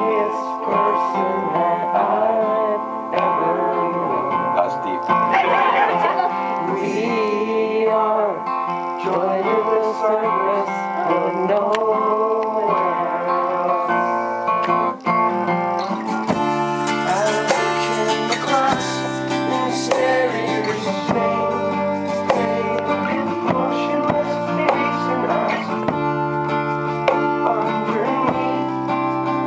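Live acoustic performance: a steel-string acoustic guitar strummed while a man sings. About sixteen seconds in, the strumming gets fuller, with deeper notes.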